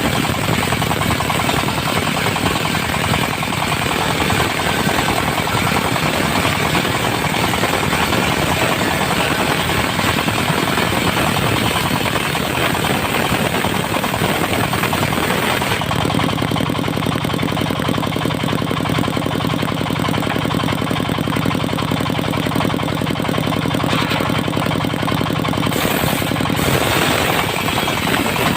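Diesel-driven circular sawmill with its blade cutting through dry teak, the engine running under load. About halfway through, the harsh cutting noise drops away and leaves the diesel's steady hum for roughly ten seconds. The cutting noise returns near the end.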